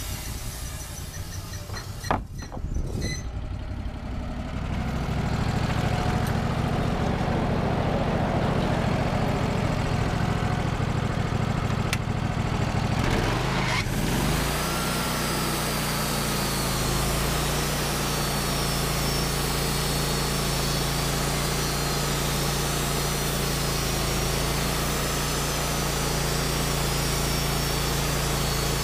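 Sawmill's 25 HP Kohler V-twin engine running steadily, after a single sharp knock about two seconds in. Its note shifts about halfway through, then holds steady.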